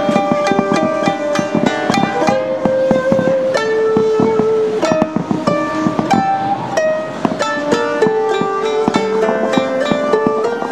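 Background music in Japanese style: plucked strings playing a quick melody of many short notes.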